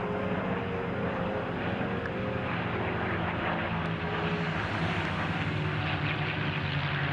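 P-51 Mustang's V12 Merlin piston engine droning as the fighter flies its display, steady, its sound growing brighter in the second half.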